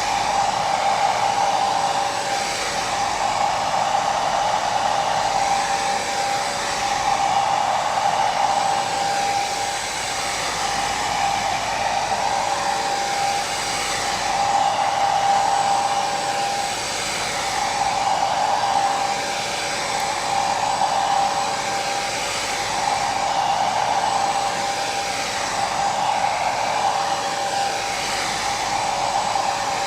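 Hair dryer running continuously: a steady rush of air with a motor whine, swelling and easing slightly every couple of seconds.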